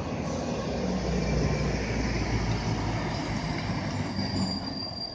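Alstom Citadis 402 Luas tram running on street track, its wheels squealing on the rails, with a thin high squeal tone setting in near the end. A low rumble of road traffic runs beneath it in the first few seconds.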